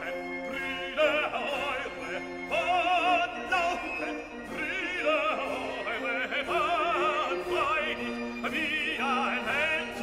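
Background music: a high operatic voice sings sustained notes with heavy vibrato over orchestral accompaniment.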